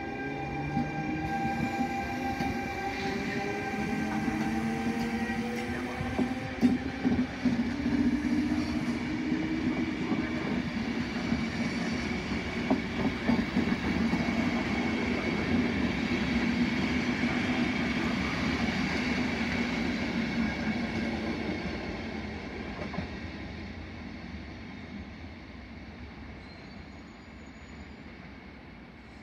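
Trenord regional train hauled by an E.464 electric locomotive passing close by. The locomotive's electric drive whines in several tones, some sliding down in pitch, then the coaches' wheels rumble over the rails with a few sharp clicks. The sound fades away over the last several seconds.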